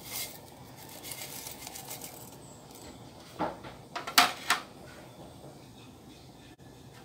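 Sharp metal clinks and knocks on a metal cooking pot, four or so in quick succession, the loudest a little after four seconds in, with a softer crackling patter about a second in.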